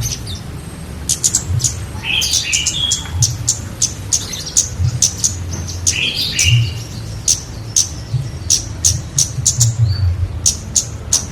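Kemade songbird calling in full voice: a quick series of sharp, high chirps, about two a second, broken twice by short, lower warbling phrases, about two seconds in and about six seconds in. A low hum swells and fades underneath.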